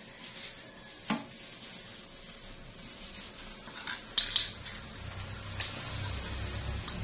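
Kitchen items clinking and knocking as they are handled, a few sharp clinks with two close together about four seconds in. A low hum comes in during the last two seconds.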